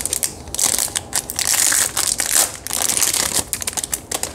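Plastic packaging crinkling as a bubble-wrap bag and a clear wrapper around a gel polish bottle are handled: a dense, crackly rustle of many small clicks, loudest in the middle.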